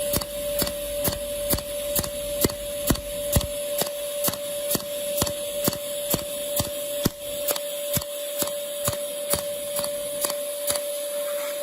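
A machine running with a steady whine and sharp, regular clicks about twice a second, like a repeating mechanical stroke.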